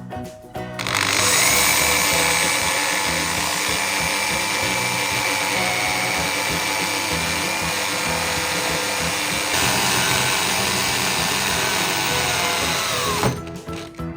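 Electric drill running steadily with a high whine for about twelve seconds, then winding down with a falling pitch near the end.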